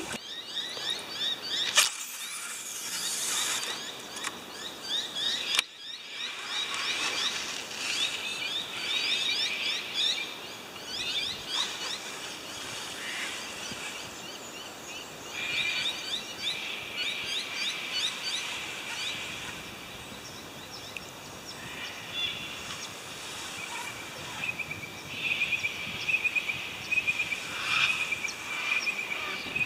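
Many birds chirping and calling in short, repeated notes over a steady low hiss of outdoor ambience.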